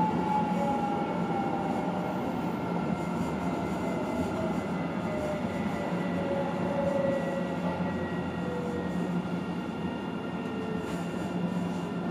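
Inside a moving Alstom Citadis low-floor electric tram: steady running rumble with a faint electric whine that falls slowly in pitch as the tram slows toward a stop.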